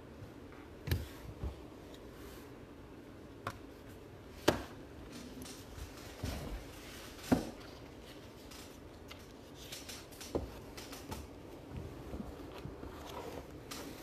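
Trading cards being handled on a tabletop: a series of sharp, separate taps as cards and stacks of cards are set down and squared against the table, with faint shuffling between them over a low steady hum.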